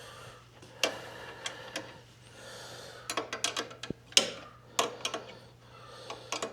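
Metal hand tools clicking and clinking as a socket wrench is fitted to a nut and bolt on a motorcycle hitch mount: single sharp clicks spread through, with a short run of quick clicks about three seconds in.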